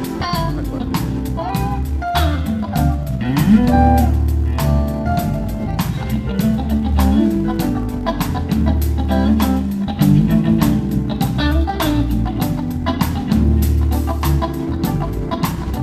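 A live band playing: a guitar melody with bending notes over a bass line and a steady drum beat.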